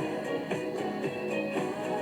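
Background music: an instrumental stretch of a pop song with strummed guitar.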